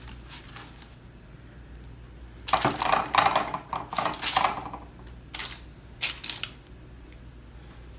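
Parchment paper crinkling, with light clicks and taps, as oven-baked eggplant slices are lifted off a parchment-lined baking sheet and laid into a glass baking dish. The crinkling is loudest in the middle, and a few sharp clicks follow near the end.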